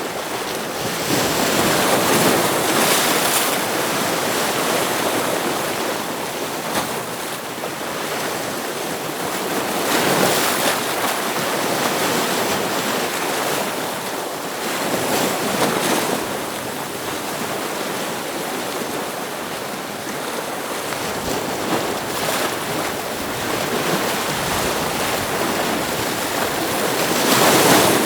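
Ocean waves breaking against rocks, a continuous wash of surf that swells with each wave every few seconds, the loudest break near the end.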